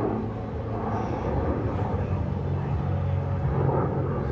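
An FG-1D Corsair's radial engine and an F/A-18F Super Hornet's jet engines droning together as the pair fly past in formation: a steady low rumble with a low, even hum underneath.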